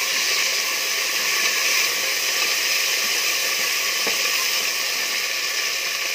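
Hot oil sizzling steadily as freshly added fresh herbs (curry leaves, coriander and mint) fry in a stainless-steel pressure cooker while being stirred with a wooden spatula.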